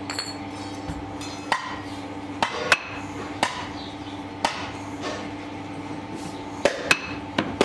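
A metal bar knocking on a steel moulding flask and its packed moulding sand, about nine sharp, irregular strikes with a short metallic ring. A steady machine hum runs underneath.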